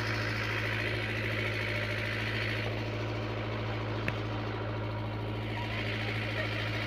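A wooden boat's engine running steadily, a deep even hum, under a constant hiss of wind and water. There is a single sharp click about four seconds in.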